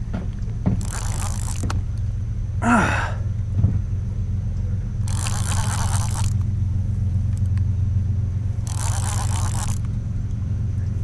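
Baitcasting reel being cranked against a hooked blue catfish over a steady low rumble, with three hissing bursts of about a second each and a brief rising vocal sound about three seconds in.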